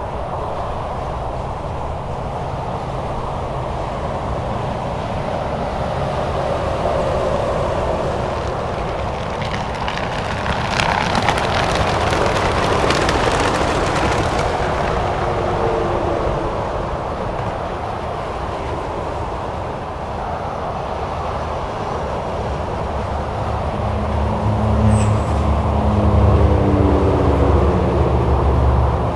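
Steady highway traffic: tyre hiss and engines of vehicles passing at speed, with a louder, hissier pass about halfway through. Near the end a deeper engine drone swells as a heavy vehicle comes close.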